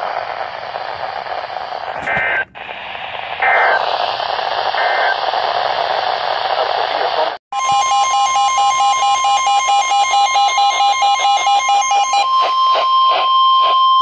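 Midland weather radio receiving a NOAA Weather Radio broadcast: static hiss with three short data-burst chirps about a second apart, an emergency alert header. After a brief dropout a loud steady alert tone sounds with a fast pulsing beep over it, and near the end the steady tone carries on alone.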